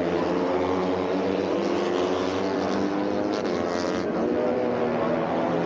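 A field of Moto3 race bikes with 250 cc single-cylinder four-stroke engines running at high revs around the circuit, several engine notes overlapping and shifting slightly in pitch.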